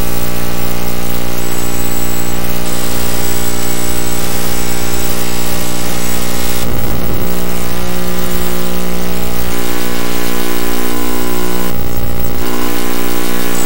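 Loud buzzing electronic drone from a circuit-bent Sony video sketchpad toy whose colour-channel video signals are fed out as audio: a dense stack of steady tones over a hissing noise, with a thin high whistle in the first few seconds. The texture changes abruptly about seven and twelve seconds in, each time with a brief swooping sweep in pitch.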